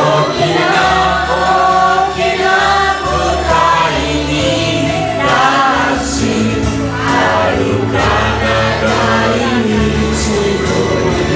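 A woman singing into a handheld microphone, amplified, with other people in the room singing along as a group.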